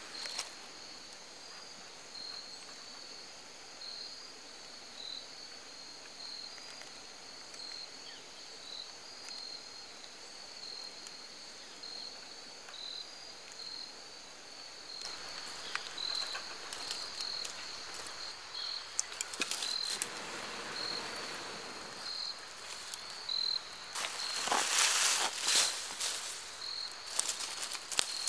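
Crickets chirping steadily, a little more than once a second. From about halfway through, dry leaves and twigs rustle and crunch as they are handled, loudest a few seconds before the end.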